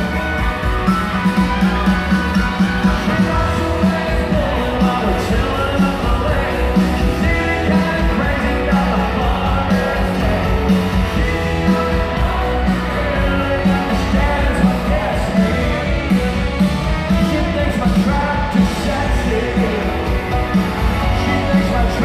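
Live country band with a lead singer playing in an arena, electric guitars and drums keeping a steady beat under the vocals.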